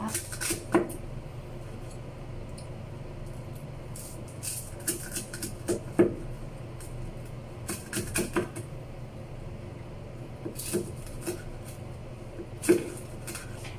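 Kitchen knife cutting cooked pork on a wooden chopping board: irregular knocks, some in quick pairs, over a steady low hum.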